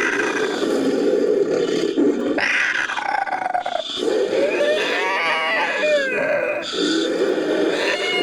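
Made-up creature calls for a humanoid hawk: layered growls and roars mixed with gliding, falling screeches, in several overlapping calls with short breaks between them.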